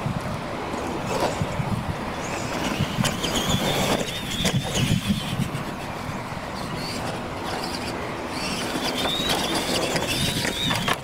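Electric motors of radio-controlled Tamiya Clod Buster-style monster trucks whining under throttle, the whine rising and holding twice, with a few sharp knocks as the trucks hit and land jumps on the dirt track.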